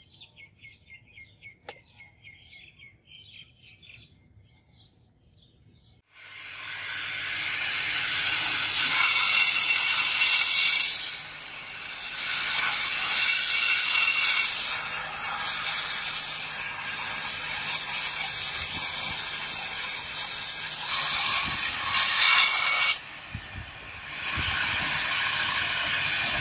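A belt grinder starts about six seconds in and runs up. A steel knife blank made from leaf spring is then pressed to the abrasive belt, giving a loud hissing grind that breaks off briefly a few times as the blade is lifted and repositioned. Faint chirping is heard before the grinder starts.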